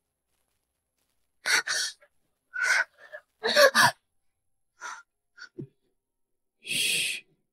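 A young woman gasping for breath in a series of short, breathy gasps, with a longer hissing breath near the end.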